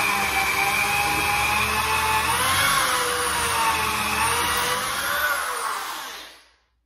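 Corded electric drill running with a small bit, boring a pilot hole all the way through a cabinet door for the hardware screws. Its whine dips slightly in pitch under load midway, then it winds down and stops near the end.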